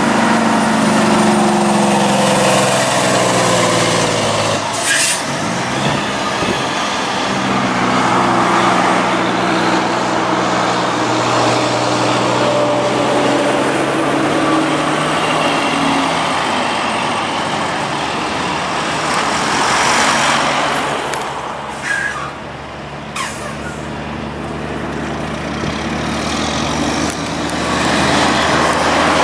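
Heavy diesel trucks passing on a highway one after another, their engine note falling in pitch as each goes by, over steady tyre and road noise. A brief sharp hiss about five seconds in, and the engines grow louder again near the end as more trucks approach.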